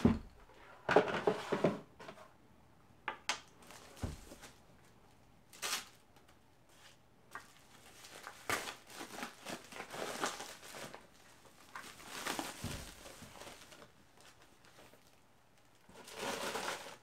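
Paper wrapping rustling and crinkling in irregular spurts as it is unfolded and pulled off a boxed item, with a few light taps and low thumps of the box and case being handled.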